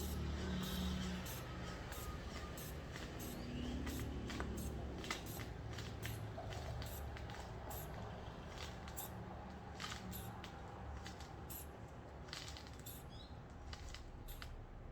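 Manual blood pressure cuff being pumped up with its rubber bulb: a run of short, irregular clicks and puffs of air, several a second, over a low steady rumble.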